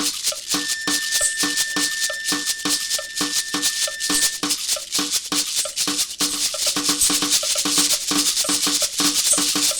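Percussion-driven instrumental music: a shaker plays constantly over a steady drum beat. One long high note is held through the first half.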